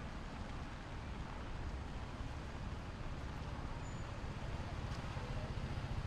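Steady hiss and low rumble of a wet city street in the rain, with traffic going by.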